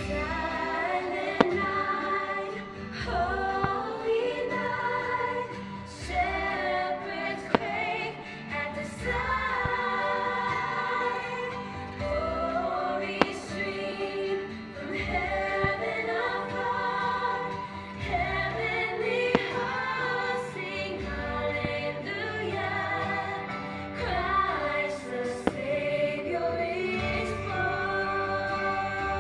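Choir singing with instrumental backing, in phrases of a few seconds each. A few short sharp cracks stand out over the music.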